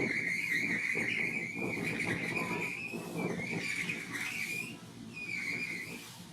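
A loud, high-pitched, wavering squeal in three long stretches, the last one shorter, over a low rustling noise.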